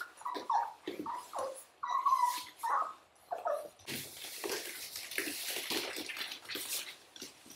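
Golden retriever puppies whimpering in short, high cries that bend up and down, several in quick succession for the first three and a half seconds. After that the cries stop, and a dense rustle and patter of many small paws scrambling on a hard floor follows.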